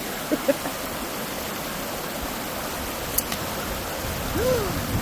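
Steady rushing of flowing water, with a single sharp click about three seconds in.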